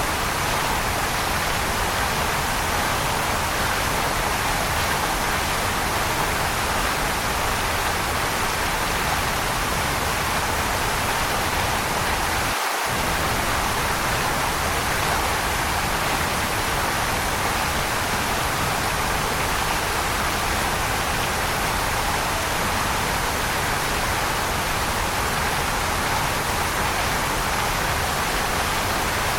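Waterfall: the steady rushing hiss of falling water, even in level throughout. The low rumble drops out for an instant about twelve seconds in.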